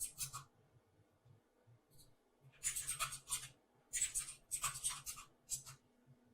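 Computer mouse sliding and scraping on a desk in several short scratchy bursts.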